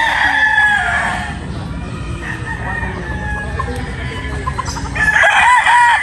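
Gamecocks crowing one after another. A loud crow trails off in the first second, fainter crows from farther birds follow in the middle, and another loud crow begins near the end.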